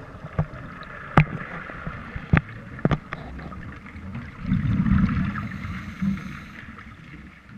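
Scuba diver breathing underwater through a regulator, with a burst of exhaled bubbles gurgling about four and a half seconds in. Several sharp clicks come in the first three seconds, over a steady watery hiss.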